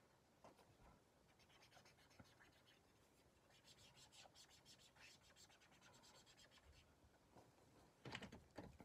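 Faint scratching of a brush pen marker's tip on sketchbook paper: many quick, short colouring strokes, with a few louder rustles near the end.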